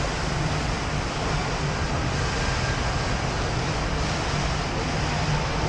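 Steady rushing ambience of a large indoor shopping-mall atrium, with a low steady hum underneath.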